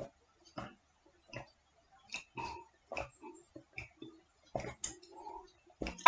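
A person gulping down a glass of orange juice: a run of short swallowing gulps, about one every half second. Right at the end a drinking glass is set down on the table with a sharp knock.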